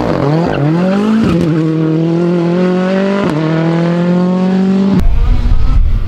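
Ford Fiesta rally car engine accelerating hard out of a corner, climbing through the revs with two upshifts, about a second in and again about three seconds in. About five seconds in it cuts to another rally car's engine under a heavy low rumble.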